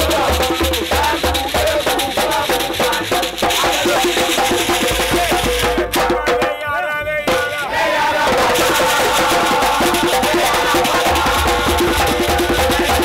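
Music with a steady percussion beat of drums and rattles under a melody. About six seconds in, the beat drops out for about two seconds, leaving only a wavering melodic line, then comes back in.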